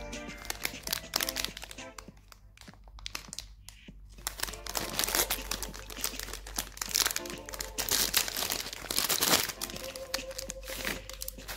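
Plastic wrapper of a cream-wafer packet crinkling and tearing as it is pulled open by hand. The rustling comes in bursts, loudest about halfway through and again toward the end, over background music.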